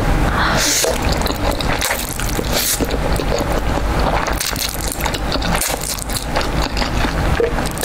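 A person slurping and chewing jjajangmyeon, black-bean-sauce noodles, in loud, irregular bursts.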